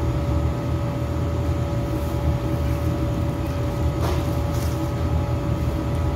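Floor-standing air-conditioning unit running: a steady low rumble with a constant hum over it. Plastic bags crinkle briefly about four seconds in.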